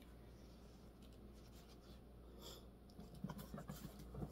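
Near silence with faint rustling and a few light scratchy taps from a leather handbag being handled and turned over, mostly near the end.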